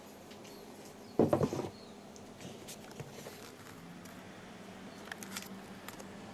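Cardboard packaging being handled and opened. There is one louder scrape or rustle about a second in, then scattered small clicks and taps.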